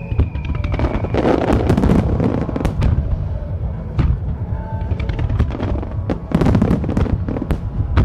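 Starmine fireworks display: rapid volleys of shell bursts and crackling stars going off in quick succession, heaviest about a second in and again around six seconds in, with music playing underneath.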